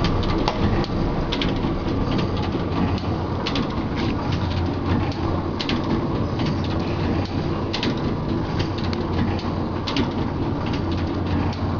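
Book stitching machine running: a steady mechanical clatter over a constant low hum, with sharp clicks every second or so.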